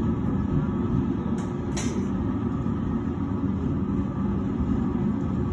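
Steady low roar of a glass furnace's burners in a glassworks, with a couple of faint clicks about one and a half to two seconds in.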